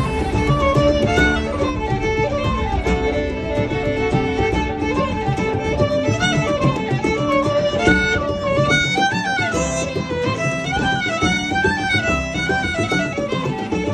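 Background music led by a fiddle playing a quick, lilting melody over a steady accompaniment.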